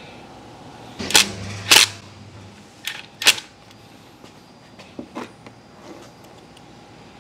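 A series of about six sharp clicks and knocks of scooter parts and hand tools being handled while the cleaned throttle body is put back together. The loudest come in the first three and a half seconds.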